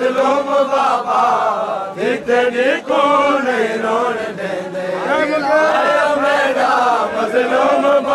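Loud chanting by a large group of men's voices together, the pitch rising and falling in phrases of a second or two.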